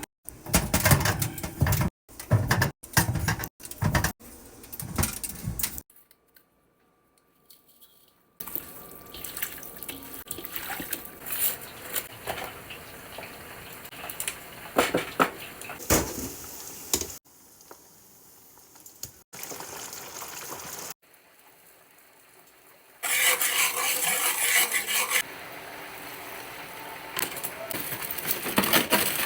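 Kitchen food-preparation sounds that change abruptly every few seconds: running water and dishes and pans being handled.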